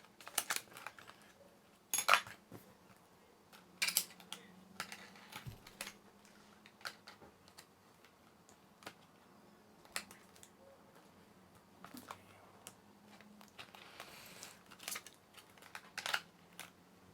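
Irregular small clicks and taps of hard plastic and metal as a replacement battery and its cable are pushed and tucked into place inside a 13-inch MacBook Pro's case, with a few sharper knocks about two, four and sixteen seconds in.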